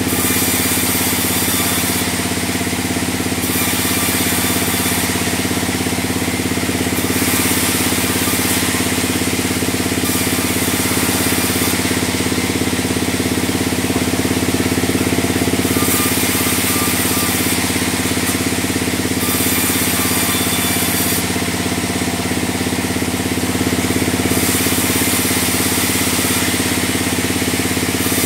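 A large log band saw running steadily with a constant machine hum, and every few seconds a stretch of one to three seconds of high hissing as the blade cuts through a log.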